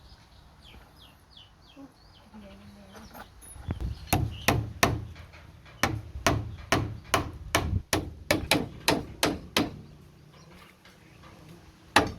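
Hammering: a run of sharp blows, about two to three a second, starting some four seconds in and stopping near ten seconds, then two more blows near the end.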